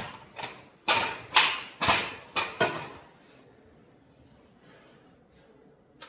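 Handling noises from fitting a garage door roller wheel onto its bracket: a quick run of about six scraping, knocking sounds roughly half a second apart. They stop about three seconds in, and a single click follows near the end.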